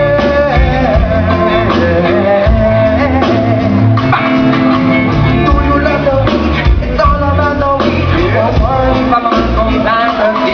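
Live rock band playing through a PA: electric guitar, bass and drums, with a sung vocal line over them.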